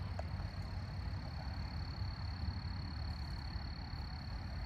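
Outdoor ambience: a steady, unbroken high-pitched trill of calling wildlife over a low microphone rumble.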